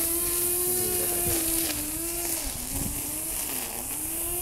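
A small motor running steadily with an even hum; its pitch sags briefly three or four times and climbs back, as if loaded for a moment.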